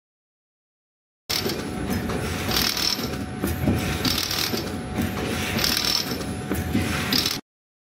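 Hexagonal wire mesh (chicken wire) weaving machine running: a steady mechanical clatter from the twisting section, with a brighter metallic swish about every second and a half. It cuts in abruptly about a second in and stops suddenly shortly before the end.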